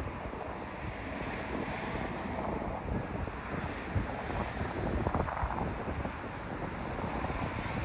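Wind buffeting the microphone: a steady rushing noise that swells in gusts around four to six seconds in.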